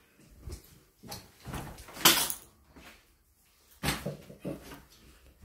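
A few scattered knocks and rustles from things being handled, with the sharpest knock about two seconds in and another near four seconds.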